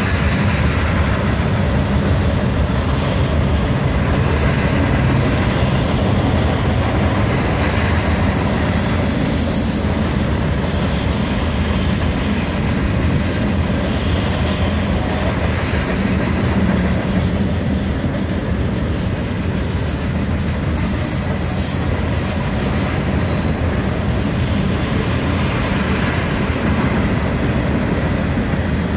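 Freight train's covered hopper cars rolling past steadily: the continuous rumble and clatter of steel wheels on the rails, with a few sharper high-pitched moments about two-thirds of the way through.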